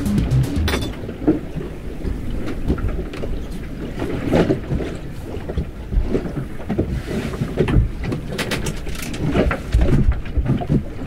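Wind buffeting the microphone and water rushing along the hull of a sailboat under sail, with irregular low gusts and knocks.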